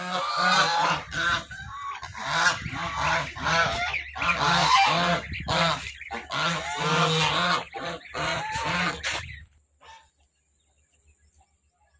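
Domestic geese honking over and over, their calls overlapping. The honking stops about nine seconds in, leaving only a few faint sounds.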